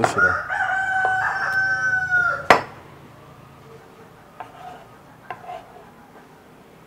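A rooster crowing once: a single long call held for about two seconds that sags in pitch as it ends. Just after it comes a sharp knock, then a few faint taps of a knife chopping on a wooden board.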